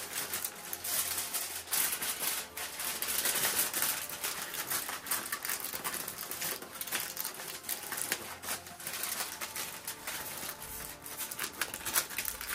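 Heavy-duty aluminum foil crinkling and crackling as it is crumpled and pressed into shape by hand.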